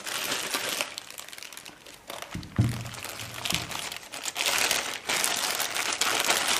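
Plastic packaging crinkling and rustling in stretches as parts in bubble wrap and a clear plastic bag are handled, with one dull thump about two and a half seconds in.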